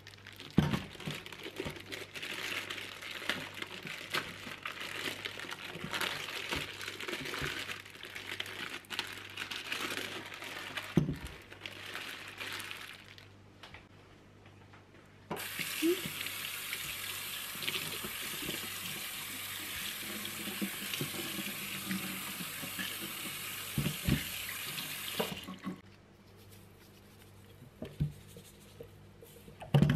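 Kitchen tap running into a stainless-steel sink, splashing unevenly with small knocks for the first dozen seconds. After a short pause it runs in a steady stream over a whole raw chicken for about ten seconds, then is shut off suddenly, leaving a few knocks near the end.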